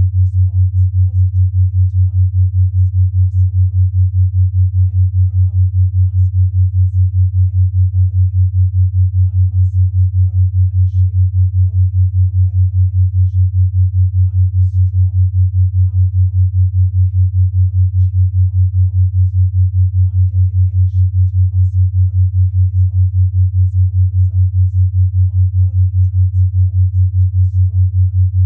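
Binaural-beat track: a steady low sine tone near 100 Hz, pulsing evenly about five times a second, a 5 Hz binaural beat. A very faint murmuring voice lies far beneath it, the subliminal affirmations mixed to be barely audible.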